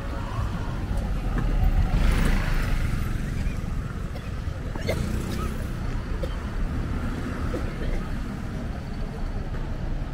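City street traffic: a steady low rumble of cars, with a vehicle passing close and loud about two seconds in.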